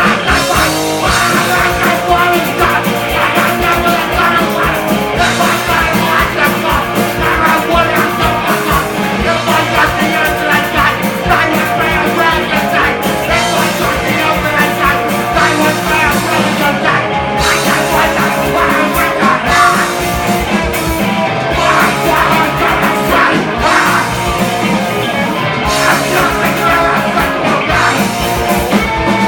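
Punk rock band playing live and loud, with a singer over the full band.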